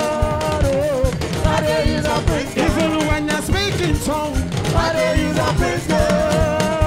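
Upbeat praise music: singing with long, wavering held notes over a busy drum beat.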